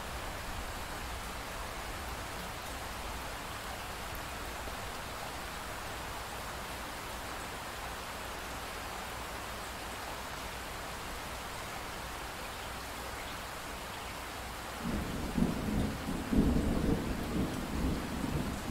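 Steady pink noise, an even soft hiss. About fifteen seconds in, a loud, uneven low rumble of thunder comes in over it and rolls on, swelling and easing.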